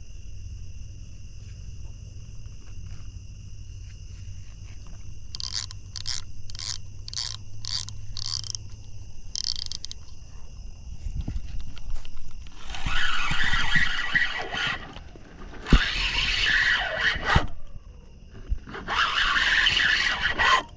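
A steady chorus of night insects, with a short run of about six sharp chirps roughly two a second near the middle. In the second half a fishing reel's drag or line clicker buzzes in three loud bursts as a fish takes line on a bite.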